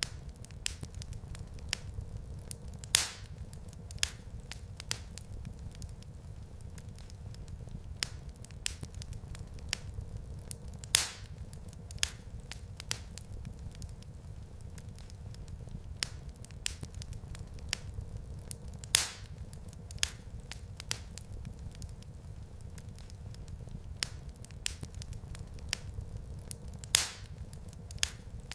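Wood fire crackling in a fireplace: scattered sharp crackles over a low steady rumble, with a louder pop about every eight seconds.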